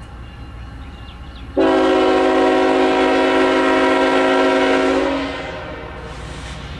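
Diesel locomotive's air horn sounding one long chorded blast of about three and a half seconds, starting suddenly about a second and a half in and dying away, over the low rumble of the approaching train.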